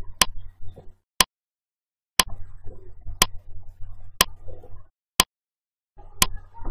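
Countdown timer sound effect ticking once a second, a sharp click with each second counted down.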